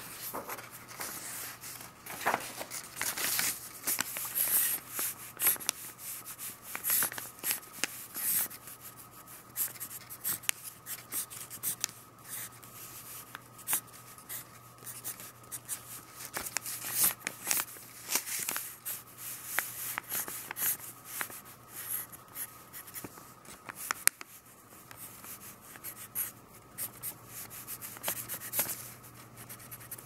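Pencil scratching on drawing paper in quick, irregular sketching strokes, with one sharp click about two-thirds of the way through. A faint steady hum sits underneath.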